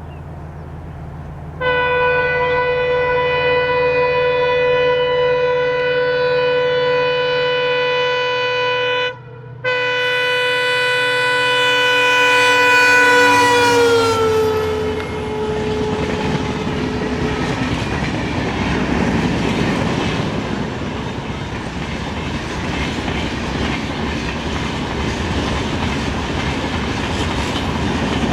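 A train horn sounds a long blast, broken once by a short gap, then falls in pitch as the train passes at speed. The rumble and clatter of its wheels on the rails follows.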